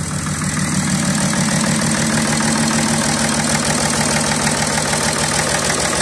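BMW 335d's M57 three-litre straight-six diesel idling roughly with an uneven, pulsing beat. It is misfiring because one cylinder has no compression.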